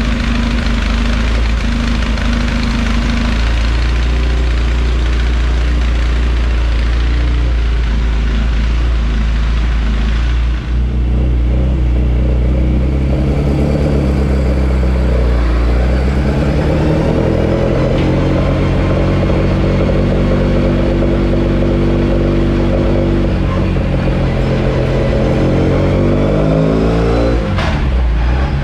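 Full-race Swiftune 1380 cc A-series engine of a classic Mini with a Weber 45 DCOE carburettor, running on a rolling road. It holds fairly steady revs, dips briefly about eleven seconds in, then climbs steadily in revs under load through a power run and backs off sharply near the end.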